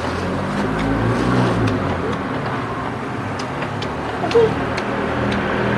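A motor vehicle's engine running with a steady low hum, with a few faint light clicks over it.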